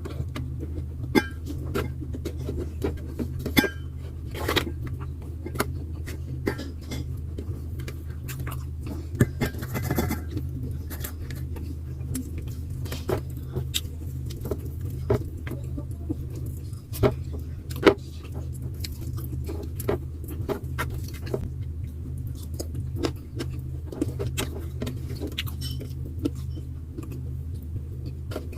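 Eating sounds: scattered light clicks and clinks of utensils and dishes, with a few sharper knocks, over a steady low hum.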